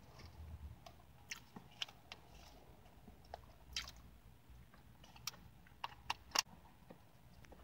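Close-miked chewing and biting of Dutch apple pie, with scattered short sharp clicks and crackles, the loudest near the end.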